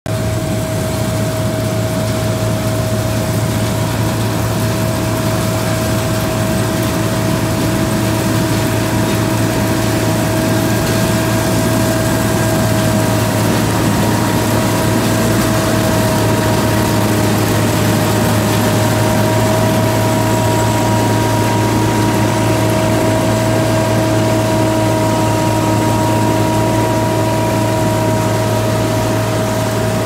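Allis-Chalmers 760 XTB cotton stripper running steadily as it strips cotton: a low engine drone with a steady whine from the machinery over it.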